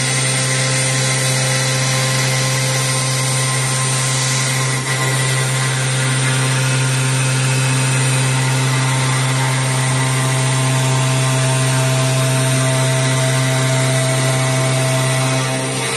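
CNC router spindle milling a clear sheet, running steadily with a constant low hum, a high whine and cutting noise, with a brief dip about five seconds in.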